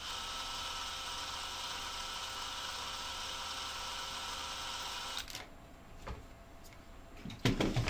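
Cordless drill turning a tap to cut threads into a hole in a resin-printed part; the motor runs steadily, then stops about five seconds in. A few knocks from handling the part follow near the end.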